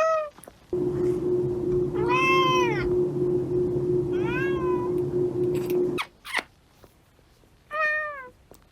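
A domestic cat meowing four times: a short meow at the start, a longer one about two seconds in, another about four seconds in, and a last one near the end. A steady hum runs under the middle meows and stops about six seconds in.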